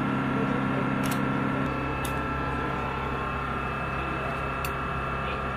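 A steady machine hum with a held whine running through it, part of the lower hum dropping out about a second and a half in. A few light clicks sound over it.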